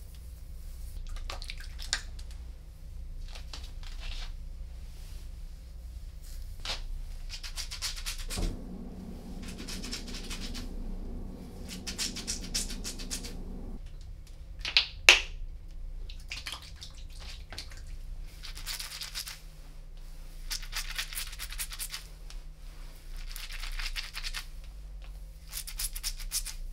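Hands scrunching wet curly hair that is coated in leave-in conditioner: a series of short wet, crackling squishes, each a second or so long. A sharp click sounds about fifteen seconds in, over a low steady hum.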